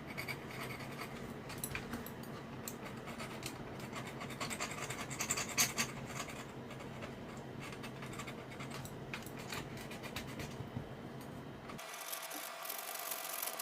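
Repeated irregular scraping strokes as corrosion is scraped off the inside of an RC helicopter controller, cleaning a corroded contact area on its circuit board.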